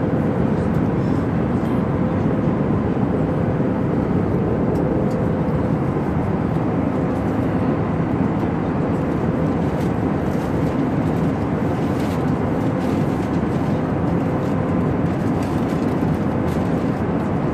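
Steady cabin noise of an airliner in flight: an even, unbroken rush of engine and airflow noise, with a faint steady hum running under it.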